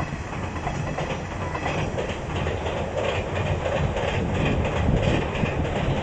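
Hanshin Railway direct limited express train crossing a railway bridge: a steady rumble with wheels clattering over the rail joints, gradually getting louder as it comes closer.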